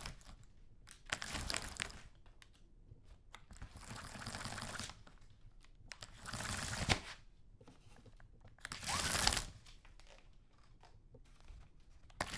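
Cord-pulled roller window blind being drawn in spurts, its top roller mechanism rattling in four separate pulls of about a second each, with another pull starting at the very end.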